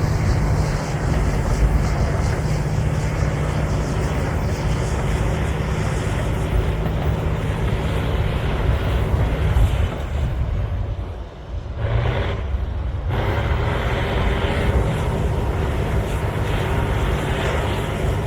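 Cat D9L bulldozer's V12 diesel engine running hard under load with a steady, heavy low rumble. It eases briefly about two-thirds of the way through, then picks back up.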